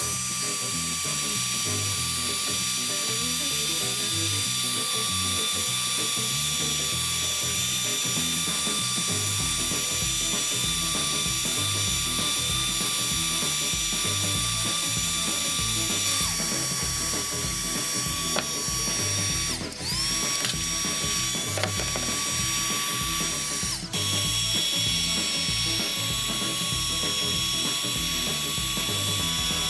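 Electric heat gun running, its fan motor giving a steady whine over a rush of air as it blows hot air to melt wax into wooden utensils. It spins up at the start, drops out briefly about twenty seconds in and spins back up, then dips for a moment a few seconds later.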